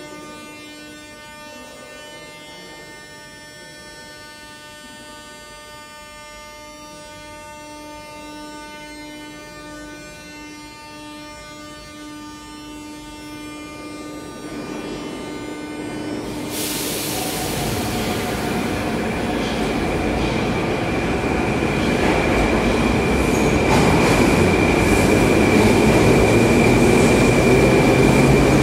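A metro train standing at the platform with a steady electrical hum of many tones. About two-thirds of the way in comes a sudden hiss of air. The train then pulls away, its running noise growing steadily louder under a high, steady whine or wheel squeal.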